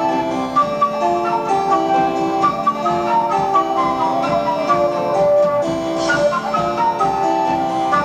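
Progressive rock band playing live, heard on an amateur tape recording: a fast, busy pattern of short melodic notes running through the whole stretch.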